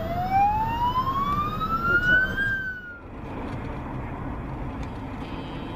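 Ambulance siren wailing: one slow sweep down in pitch and back up, cut off abruptly about three seconds in. After that, steady road noise from a car driving.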